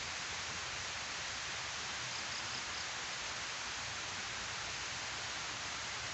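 Water rushing steadily down a concrete weir spillway into the pool below, a dense, even hiss.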